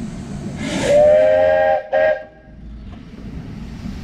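Steam whistle on a 7¼ inch gauge miniature steam locomotive sounding two close notes together: one long blast of about a second and a half, then a short second blast.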